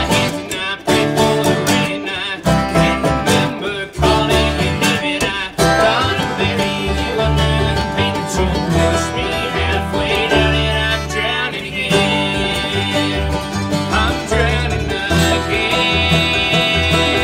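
Bluegrass string band playing an instrumental passage on banjo, mandolin, acoustic guitar and upright bass, with quick picked notes over a steady bass line.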